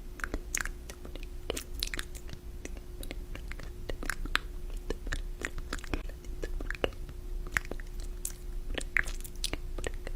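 Scattered small clicks, taps and crinkly crunches of packaging and containers being handled and set down while a fridge is restocked, a few each second, over a faint steady hum.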